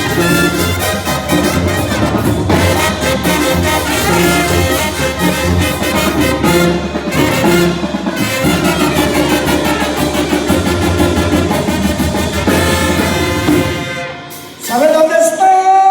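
A live brass band playing: trumpets and trombones over a steady bass line and drums. Near the end the band drops out and a single held note comes in.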